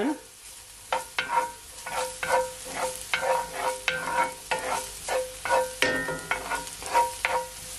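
A wooden spatula stirs and scrapes chopped onion frying in oil in a dark skillet, over a steady sizzle. The strokes come about two or three a second, starting about a second in.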